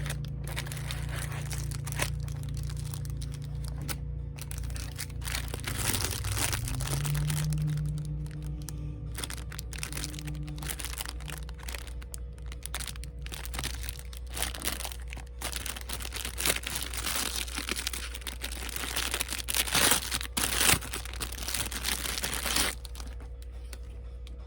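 Packaging being handled and opened: irregular crinkling and tearing, busiest and loudest late on, over quiet background music.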